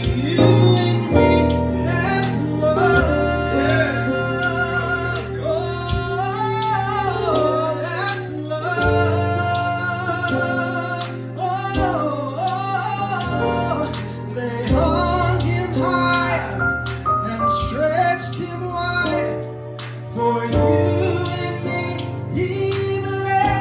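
Gospel singing at a sound check: a lead voice sings bending runs over the band's low held chords, which shift every few seconds.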